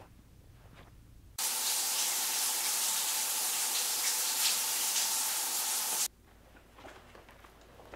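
Steady, loud hiss of spraying running water that starts suddenly about one and a half seconds in and cuts off abruptly about six seconds in.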